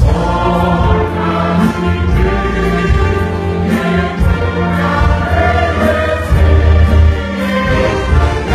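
Church symphonic band of brass, woodwinds and strings playing a hymn steadily, with many voices singing along.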